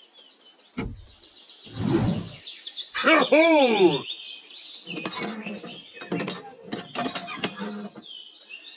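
Birds chirping, with quick falling high chirps in the first few seconds. About three seconds in, a drawn-out call rises and falls in pitch, and a string of short sharp sounds follows.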